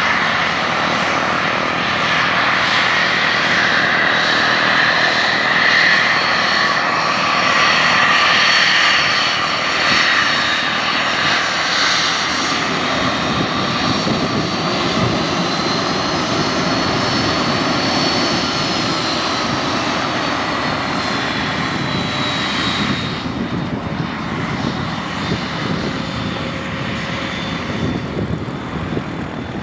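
Fixed-wing airplane's engine running loud and steady, with a high whine that slowly rises and then falls away. It eases off a little about three-quarters of the way through.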